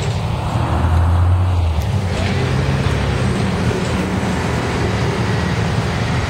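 Articulated city bus accelerating away, its engine note stepping up in pitch as it pulls off, with street traffic noise around it.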